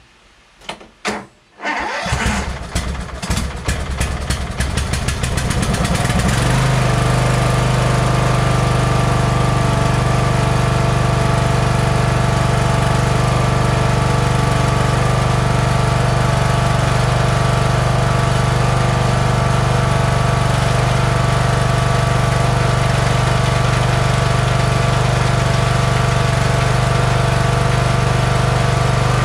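A Toro LX460 lawn tractor's Kohler engine is cranked by its electric starter for about four seconds, catches and then runs steadily. It starts readily, which the owner takes as a sign that he adjusted the valves correctly.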